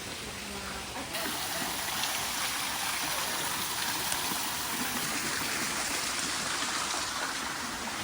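Steady rushing water, growing louder about a second in and then holding even.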